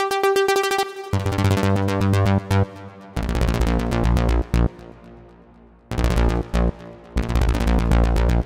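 Avenger 2 software synthesizer playing an arpeggiated pattern with ratchets: notes retriggered in fast stuttering runs. About a second in, a high-pitched sequence gives way to lower, fuller notes, and a deep bass line of rapidly repeated hits with short breaks follows.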